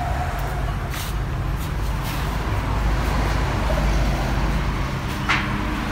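Honda Accord K24A four-cylinder idling through a newly fitted Blitz Nur-Spec aftermarket muffler: a steady low drone. A brief sharper sound cuts in about five seconds in.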